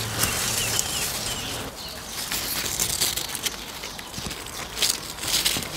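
Rustling of leaves and twigs close to the microphone, crackly and uneven, with a few faint, short, high bird chirps in the first second.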